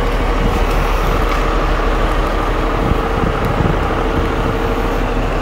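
Steady motor-vehicle rumble with a constant hum held throughout, like passing traffic.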